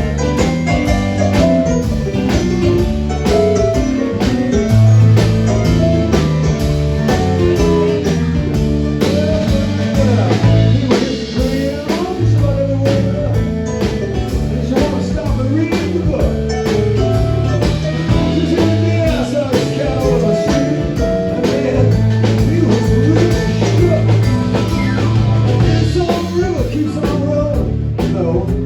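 Blues-rock song with guitar, bass and a steady drum beat, with a singing voice.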